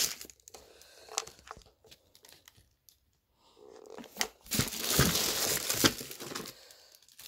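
Tissue and packaging paper rustling and crinkling as it is handled in the box, with a few light knocks. There is a pause of about a second and a half in the middle.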